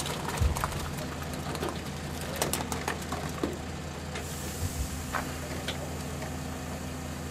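A truck engine idling steadily, with a few light clicks and knocks over it.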